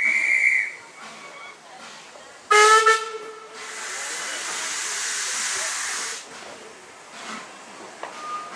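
A short high whistle sounds at the start. About two and a half seconds in, the steam whistle of 0-6-0 tank locomotive WD 198 gives one short, loud blast. A steady hiss of escaping steam follows for about three seconds as the engine sets off.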